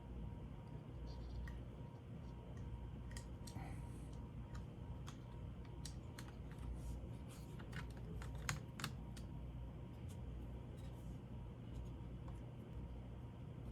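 Light, irregular clicks and taps of small plastic and metal laptop parts being handled and fitted by hand, with a couple of sharper clicks about eight and a half seconds in, over a low steady hum.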